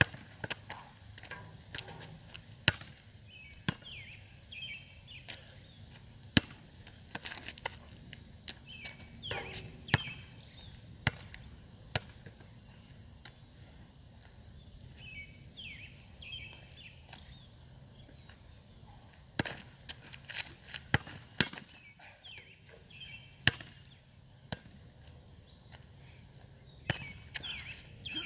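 A basketball dribbled hard on an asphalt court: sharp bounces coming in uneven runs, with a quieter spell in the middle.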